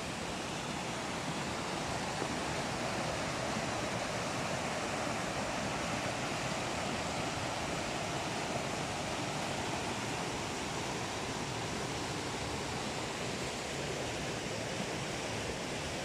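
River water rushing over rocks in small cascades and rapids, a steady, even rush.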